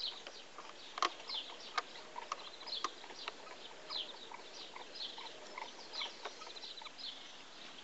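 Garden birds chirping over and over in short falling notes, with a few sharp light clicks from hands working on a model locomotive as its body is screwed on.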